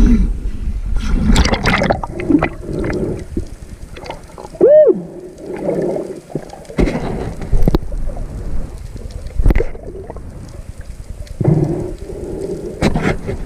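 Underwater sound from a freediver's camera: water and air bubbles gurgling and rushing around the housing in irregular surges, with a short tone that rises and falls about five seconds in.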